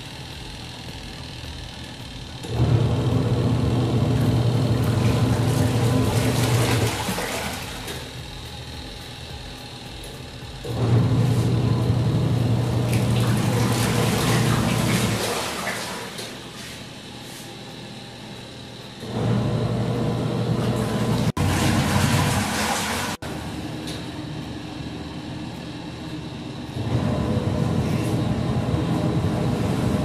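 Midea TW100AD twin-tub washing machine's wash tub agitating a load. The motor hums and the water churns for about four seconds, then eases off for about three to four seconds, in a repeating run-and-pause cycle, four runs in all. The pauses are where the wash cycle reverses the pulsator.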